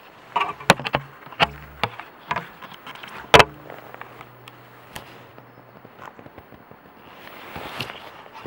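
A few irregular sharp knocks and clicks, the loudest about three and a half seconds in, over a faint steady low hum that stops about six seconds in.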